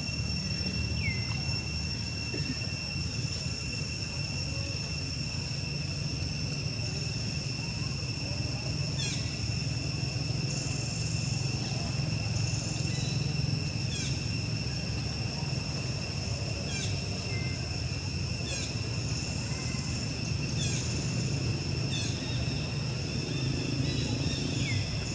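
Outdoor ambience: a steady high insect drone over a low rumble, with short, high, falling chirps every few seconds.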